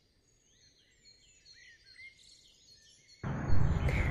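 Faint birds chirping. About three seconds in, a sudden rush of outdoor background noise starts and runs on to the end.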